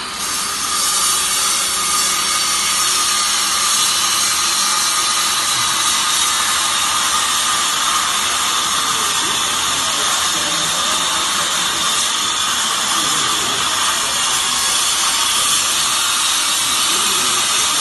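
Automatic fiber baler running: a loud, steady machine noise with an even whine held throughout.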